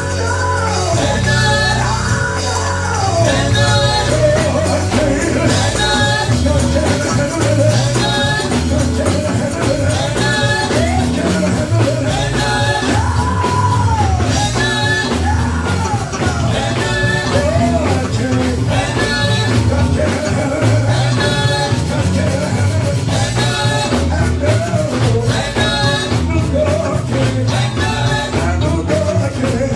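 Live gospel song: a man singing through the church sound system over band accompaniment, with a steady bass line and a regular beat a little over a second apart.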